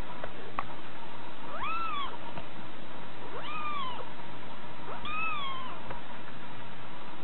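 Young kitten mewing three times, each a short, high mew that rises and then falls in pitch, about a second and a half apart.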